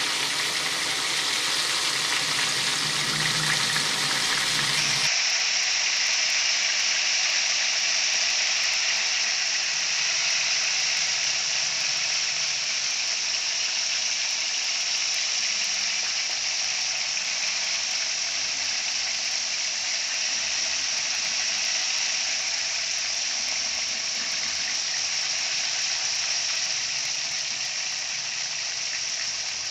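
Battered chicken wings deep-frying in hot oil: a steady sizzle, with an abrupt change about five seconds in before the sizzle carries on.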